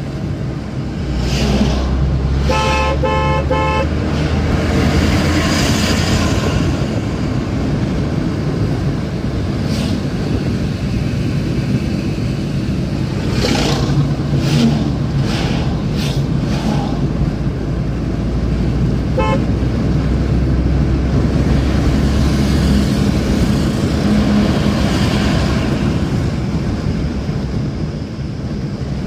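Steady engine hum and road noise heard from inside a moving car's cabin on a highway. A car horn toots in a quick run of short beeps about three seconds in, and once more briefly about two-thirds of the way through.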